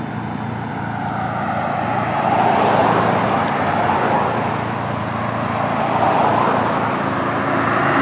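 Cars driving past, with engine and tyre noise building about two seconds in, easing off, then building again near the end.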